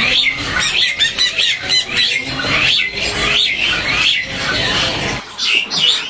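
Caged songbird in full song, a continuous rapid string of quick rising-and-falling chattering notes.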